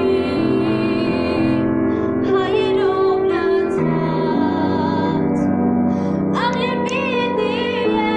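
Upright piano being played, with a female voice singing a melody over it; her held notes waver with vibrato.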